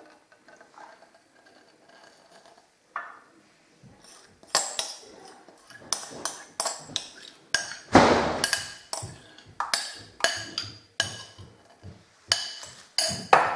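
A metal spoon knocking and clinking against a glass bowl, scraping out thick fresh cream. After a few quiet seconds come sharp clinks, about two a second, with one louder, longer scrape about eight seconds in.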